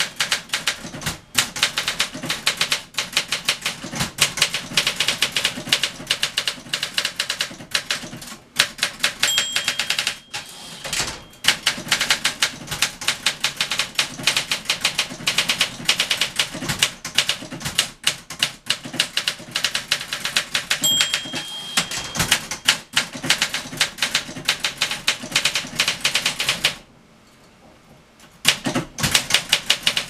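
Rapid keystrokes on a freshly serviced 1964 Olympia SM-9 portable manual typewriter: typebars clacking against the platen in quick runs. A short bell ring twice, the margin bell near line end, and a brief pause in the typing a little before the end.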